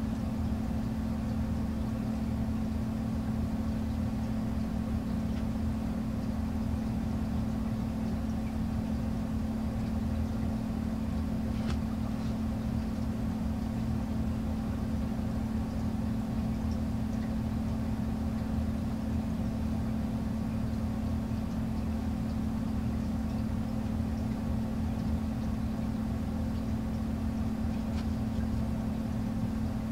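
Steady low mechanical hum with a strong constant tone, and a few faint light ticks.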